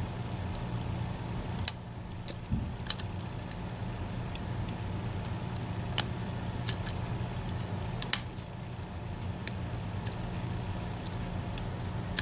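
Sparse, irregular metallic clicks and ticks from a pick and tension tool working the sliders and pins inside an EVVA ICS dimple lock, over a steady low hum.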